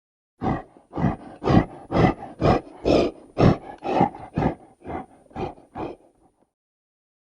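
A primate giving a run of about a dozen pulsed calls, about two a second. They grow louder toward the middle and fade out before the end.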